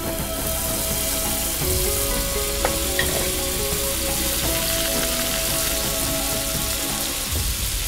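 Food stir-frying in hot oil, a steady loud sizzle that sets in at the start, with a couple of light metal clicks about two and a half and three seconds in.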